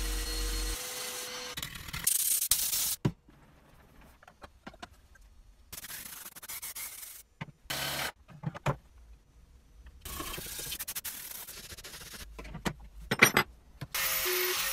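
Workshop sounds from restoring the rusty steel parts of a 1985 Tonka Mighty Cement Mixer, in short cut-together clips: rubbing and scraping on metal, separated by quiet gaps. A brief whir of a power screwdriver comes about eight seconds in, and a few sharp clicks near the end.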